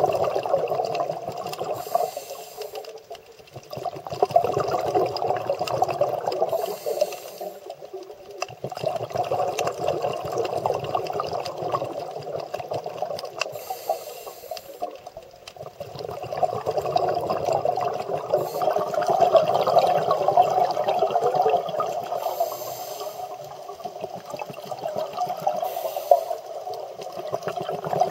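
Scuba diver's own breathing through a regulator, heard underwater: a short high hiss on each inhale, then several seconds of bubbling as the exhaled air escapes, repeated over about five breaths.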